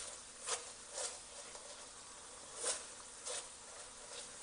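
Sauce sizzling faintly in a hot pan, with about five brief, louder hissing spurts.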